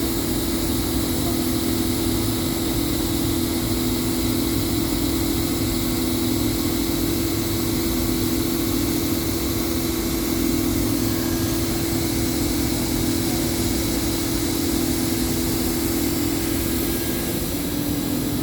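Plastic welding machine running steadily during thermoplastic tank repair welding: an even motor and blower hum with a strong steady tone. The tone dips slightly in pitch near the end.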